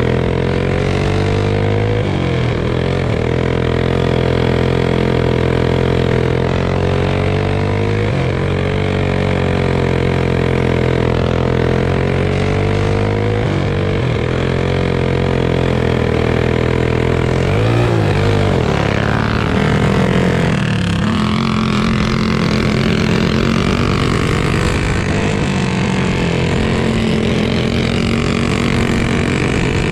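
Go-kart engine at racing speed on a dirt oval, heard from on board. The revs drop briefly about every five to six seconds as the kart goes into each turn, then climb again on the straights.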